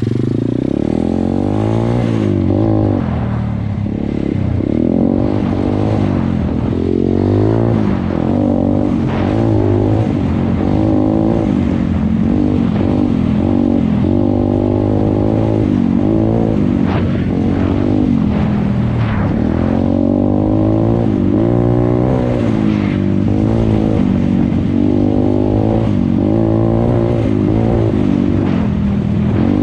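Pit bike engine being ridden hard, revving up and down over and over, its pitch rising and falling with the throttle. A few knocks break in here and there.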